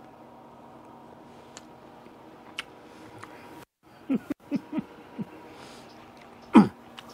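A man eating a mouthful of crunchy fried cabbage with bacon, with a few faint clicks of chewing, then a string of short falling "mm" hums of enjoyment from about four seconds in, the last and loudest near the end.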